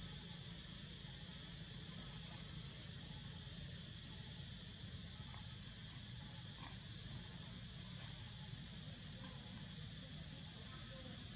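Steady high-pitched chorus of insects, an unbroken drone, over a low steady rumble.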